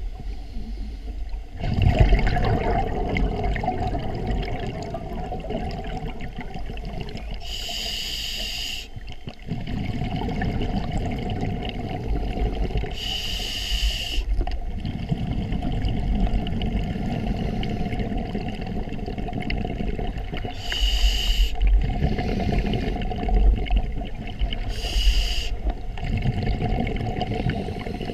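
Scuba diver breathing through a regulator, heard through an underwater camera housing: four short high hisses of inhalation through the demand valve, with the longer low bubbling rumble of exhaled air between them.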